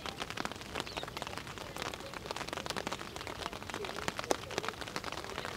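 Rain falling, a dense, irregular patter of drops striking close to the microphone.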